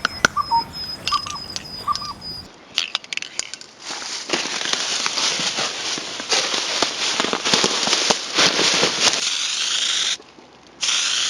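A few short chirps and clicks, then a long crackling hiss full of sharp clicks that drops out briefly near the end.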